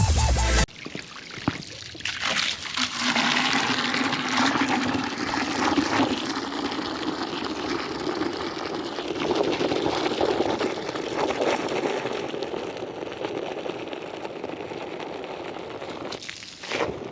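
Water running into a 5-gallon bucket of bleach and dish-soap mix as it is filled, the splashing rising slowly in pitch as the level climbs. Music cuts off just before it.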